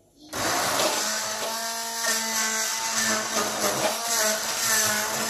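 Electric stick blender switched on about a third of a second in and running steadily, blending chopped vegetables in a bowl; a motor whine sits under a dense, even whirr.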